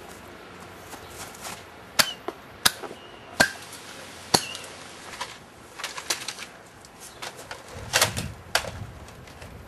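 Irregular sharp clicks and knocks from Nerf dart blasters being fired, about a dozen in all, with a short cluster of them near the end.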